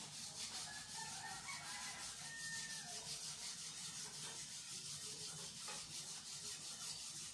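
Kitchen knife scraping steadily over chicken skin in a plastic basin, a run of quick even strokes.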